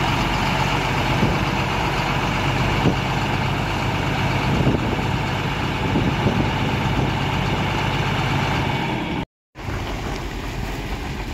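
Heavy diesel engine idling steadily, with a few light knocks over it. The sound cuts out abruptly about nine seconds in, and a quieter, steady rumble without the engine note follows.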